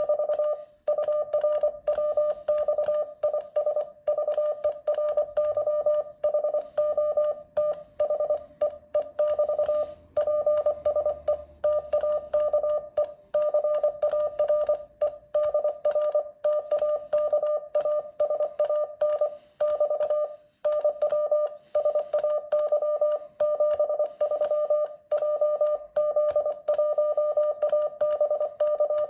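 Morse code sidetone from a ham transceiver: one steady mid-pitched beep keyed on and off in dots and dashes by an iambic paddle, with light clicks of the paddle. It sends the close of a contact: "ES ANT BT", "PSE TAKE CARE", then "NW SAY 73 JZ1ABC de JM8SFR".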